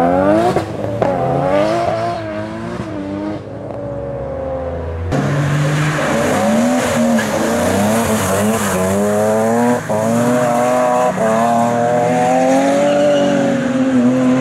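Engine-swapped cars accelerating hard: a Nissan Skyline R34 revving up as it pulls away. About five seconds in, a cut to a BMW E30 pulling through the gears, its engine note climbing and dropping several times.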